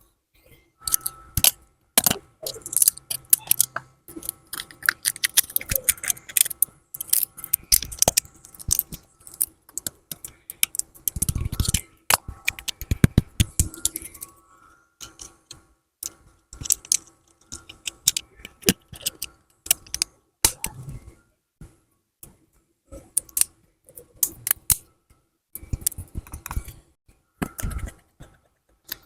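Small tools and the parts of an Oppo A54 smartphone being handled during a teardown: many irregular clicks, taps and light scrapes, thick in the first half and sparser later.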